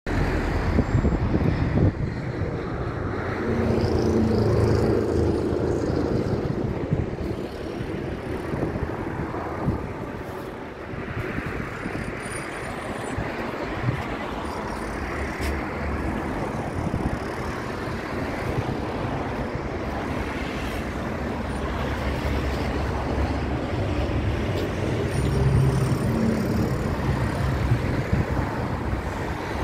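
Steady road traffic noise: cars and trucks passing, with a low engine rumble that swells about four seconds in and again near the end.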